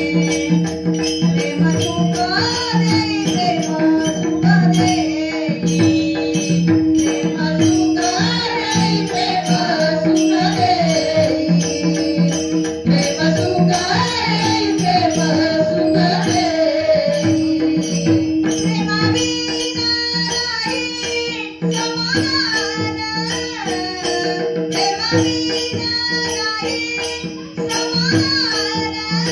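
Marathi devotional abhang sung by a single voice in a winding melody over a steady held drone, with evenly repeating jingling percussion keeping the beat.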